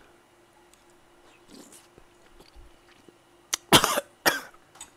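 A man coughing hard: after a few quiet seconds, a fit of harsh coughs breaks out about three and a half seconds in, three bursts in quick succession. It is set off by spicy broth with Cheongyang chili going down his windpipe, as he says afterwards.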